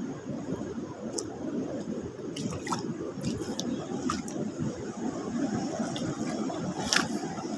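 Steady rushing noise of the sea and wind along a rocky shore, with scattered sharp clicks and one louder click near the end.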